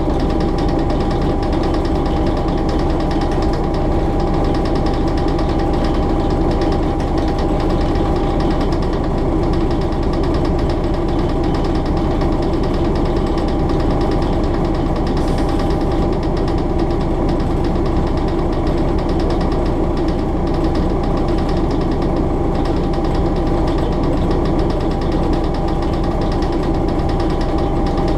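Diesel engine of a Hastings DEMU motor coach, an English Electric 4SRKT, running steadily with its rhythmic beat and a steady whine as the train travels along, heard from inside the driving cab, mixed with wheel and rail noise. A brief hiss cuts in about halfway through.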